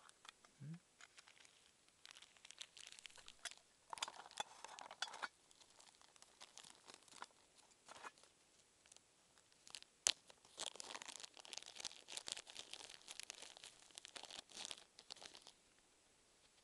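Grass stems rustling, crackling and tearing close to the microphone as hands pull at them: a faint, uneven run of rips and crackles, heaviest about four seconds in and again from about ten seconds in, with a sharp click about ten seconds in.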